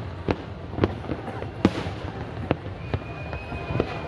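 Aerial fireworks bursting in an irregular string of sharp bangs over a continuous rumble, the loudest about one and a half seconds in. A thin, steady whistle sounds through the last second or so.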